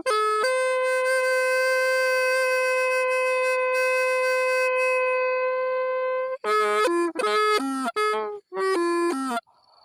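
Solo wind instrument playing a melody: one long held note for about six seconds, then a quick phrase of short notes stepping down in pitch.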